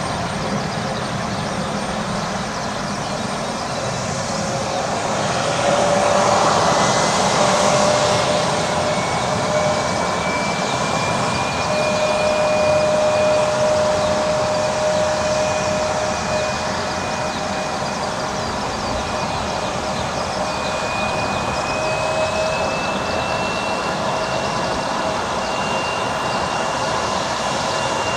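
Boeing 767 airliner's jet engines heard from a distance on approach: a steady rushing noise with a faint engine whine that slowly rises in pitch.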